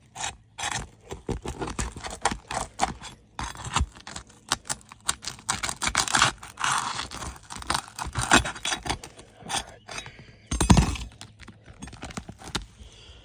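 Irregular scraping, rubbing and clicking of hand tools working on asphalt roof shingles, with a heavier dull thump about ten seconds in.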